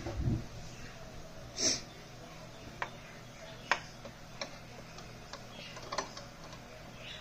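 Faint, scattered clicks and ticks of small metal and plastic parts as a presser foot is fitted back onto a Singer Patchwork sewing machine. There is a soft thump at the start and a short rustle a little over a second and a half in.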